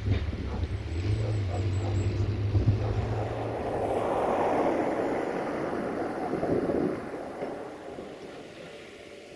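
A heavy low rumble from a vehicle or engine, with low wind buffeting on the microphone at the start. The rumble swells about four to five seconds in, then fades away after about seven seconds.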